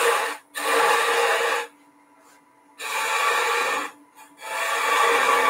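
Parting tool cutting into spinning wood on a lathe, a scraping cut made in four pushes of about a second or more each with short pauses between.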